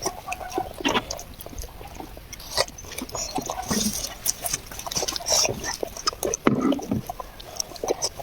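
A child eating noisily: irregular wet chewing, smacking and slurping sounds.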